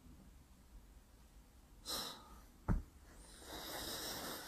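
Soft breathing close to a phone microphone: a short exhale about two seconds in, a single small knock just before three seconds, then a longer, breathy exhale near the end.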